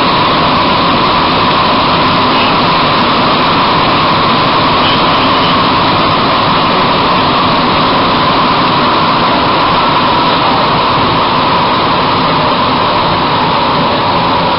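Bombardier-Vickers MR-63 rubber-tyred metro train running through a tunnel, heard from inside the car: loud, steady running noise.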